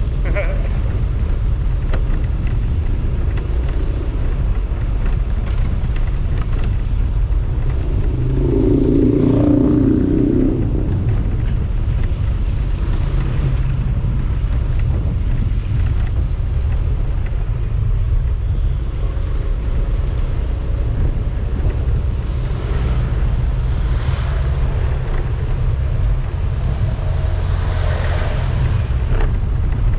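Motorcycle riding along a street, with the engine running and wind rushing over the microphone. About nine seconds in a louder sound rises over it for a second or two.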